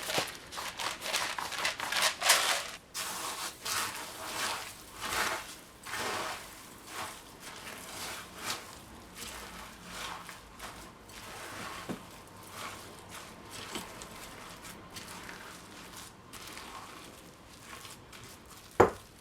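Utensil mixing minced shrimp with panko breadcrumbs in a glass bowl: irregular scraping strokes, louder in the first few seconds and then quieter, with one sharp knock near the end.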